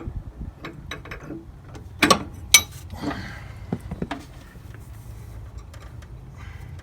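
Metal clicks and clinks of hand tools working an old brake light switch loose from a VW Beetle's brake master cylinder, with two sharp knocks about two seconds in.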